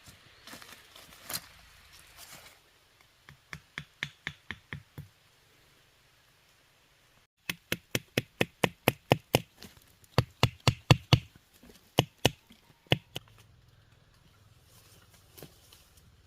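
Quick series of sharp chopping strikes on wood, about four a second. A short run of about eight comes first, then after a brief pause a longer run of some twenty that thins to a few single strikes near the end. Light rustling comes before the strikes.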